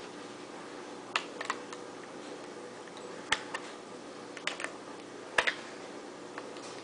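Short sharp clicks and taps, mostly in quick pairs about a second apart, as a screwdriver works the takedown screw under a Ruger 10/22 rifle's stock.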